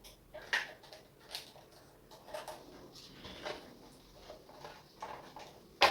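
Light, scattered clicks and taps of small plastic parts being handled during electronics repair, with a sharper click just before the end.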